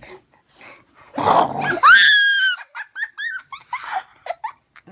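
A dog growls briefly about a second in, then gives a loud, high whine that slowly falls in pitch, followed by a quick run of short high yips and whimpers.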